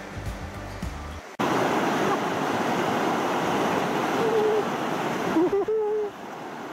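Background music that cuts off about a second in, giving way to a fast mountain river rushing loudly over stones. Two short vocal sounds from a person rise over the water near the middle.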